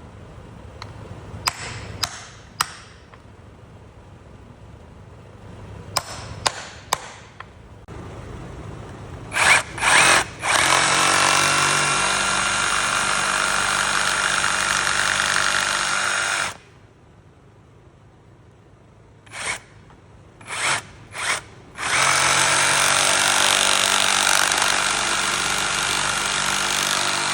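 Hercules cordless jigsaw cutting slits in rubber. A few sharp clicks come first, then short trigger blips, then two steady runs of about six and five seconds, with a pause and more blips between them.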